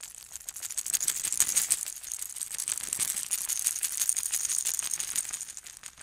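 A percussion rattle shaken continuously: a dense run of fine clicks that swells in about a second in and fades away near the end.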